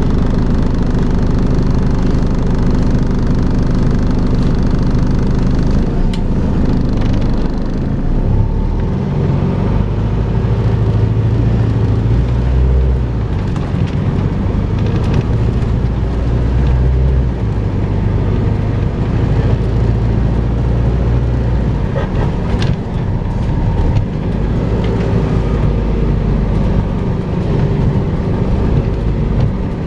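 Volvo B5LH hybrid double-decker bus running, with a steady vacuum-cleaner-like whine (the 'hoover' noise) over its low diesel engine rumble. The low rumble swells a few seconds in and eases back a couple of times as the bus pulls and slows, with a few light knocks.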